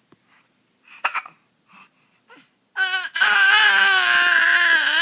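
A baby hiccups sharply about a second in, with a few small breaths around it. Just under three seconds in the baby starts one long, loud cry that holds a steady pitch.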